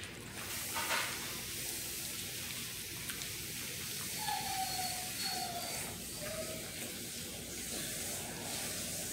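Basset hound puppies eating soft mush from a shared metal pan: a steady wet smacking and lapping, with three short falling whimpers in the middle.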